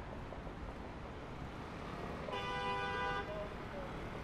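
Steady city traffic noise, with a car horn sounding once for about a second midway through.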